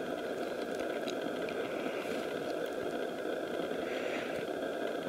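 A steady, unchanging hum of an idling engine.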